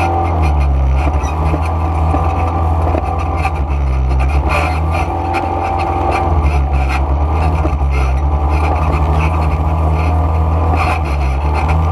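Quad-bike ATV engine running loud as it rides along a dirt trail. Its pitch rises and falls as the throttle opens and closes.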